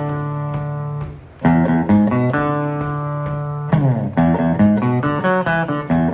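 Background music on a plucked guitar: a held chord fades out, a new chord is struck and rings, then a run of quick picked notes.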